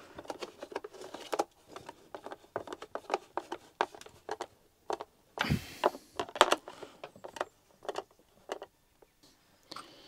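Hand screwdriver tightening screws into a plastic vacuum cleaner housing: scattered small clicks, taps and scrapes of the tool and the plastic body being handled, with one louder rustling knock about halfway through.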